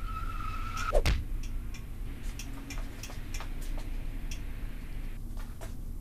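Buttons being pressed on an electric heat-treating oven's controller: a short steady beep, a thump about a second in, then scattered sharp clicks over a low steady hum.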